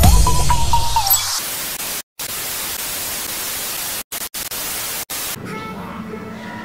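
The tail of an electronic intro jingle with a deep bass, ending about a second in, then a television static hiss effect that drops out briefly three or four times and stops about five seconds in, leaving a quiet background.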